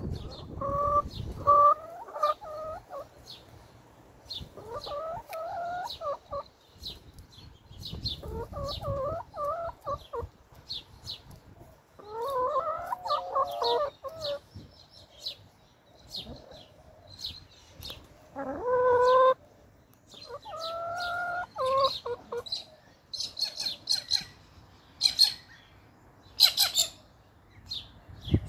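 Brown hens complaining: drawn-out, wavering calls, one after another every few seconds, with short high chirps scattered between them and coming thicker near the end.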